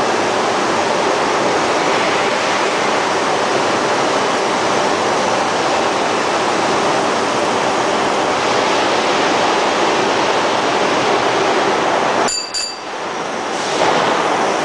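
Ring-rolling mill working a red-hot steel ring, with a steady loud rushing hiss from the cooling-water spray on the rolls and the hot steel. The noise dips briefly about twelve seconds in, then comes back.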